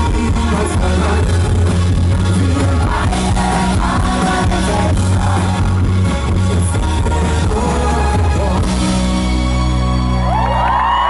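Live rock band with a male lead singer, heavy steady bass under the vocal. Near the end the band thins out and whoops and cheers rise from the audience.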